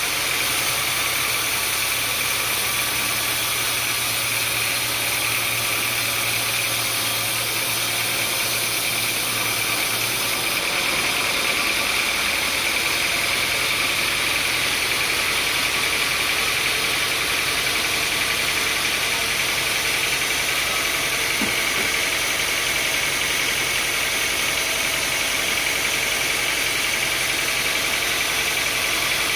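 Sawmill machinery running steadily, with a low engine-like hum under a constant high tone; the sound shifts slightly about ten seconds in.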